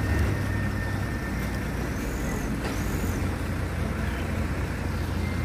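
Truck engine running with a steady low hum, with a few faint high chirps in the middle.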